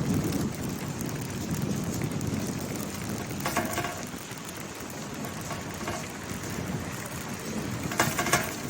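Wind buffeting the microphone outdoors: a steady low rumbling noise, with brief faint pitched calls about three and a half seconds in and again near the end.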